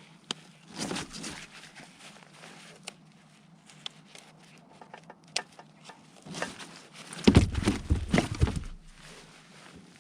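Handling noise in a kayak: scattered clicks and knocks with rustling, and a cluster of heavier bumps and scraping about seven to eight and a half seconds in.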